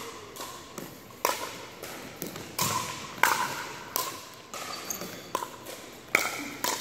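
Pickleball paddles striking a hard plastic ball in a fast rally: a string of sharp pops about every half second, echoing in a large gym.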